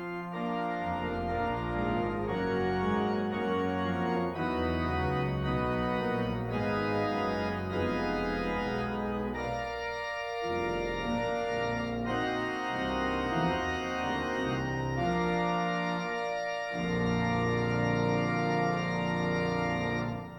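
Organ playing the postlude: sustained chords over a moving bass line.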